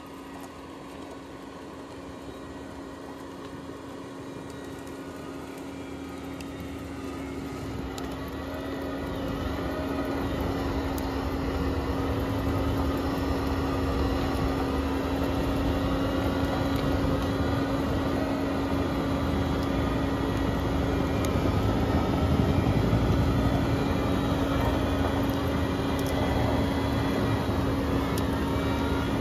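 Bobcat T870 skid steer running a CONETEKS 2.13SF forestry rotor attachment, with the diesel engine under load and a steady whine from the spinning rotor as it grinds up stumps, roots and soil. The sound fades in and grows louder over the first ten seconds or so, then holds steady.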